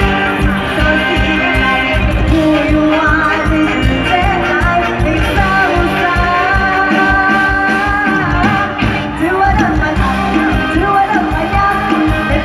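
Live Isan luk thung band music with a woman singing the melody over it, loud and continuous.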